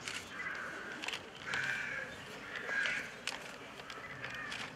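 Birds cawing in harsh, half-second calls, three of them about a second apart, with a few short clicks between.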